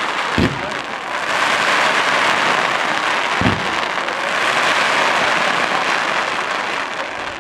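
Fireworks: dense, continuous crackling with two deep booms, about half a second in and again about three and a half seconds in. The crackle starts to thin out near the end.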